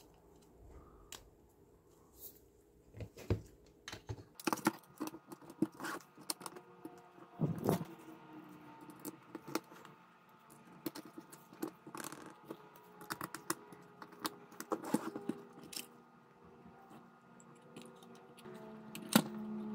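Irregular small clicks, taps and light rattles as a plastic instrument enclosure, circuit boards and cables are handled and fitted together during assembly.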